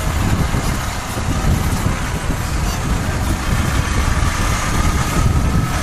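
Wind rushing over the microphone of a moving motorcycle, with the Royal Enfield Himalayan's 411 cc single-cylinder engine running underneath as a steady low drone.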